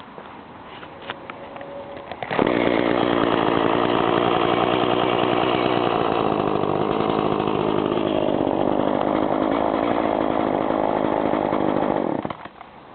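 Echo CS-420ES two-stroke chainsaw engine catching suddenly about two seconds in. It runs steadily for about ten seconds, then cuts off.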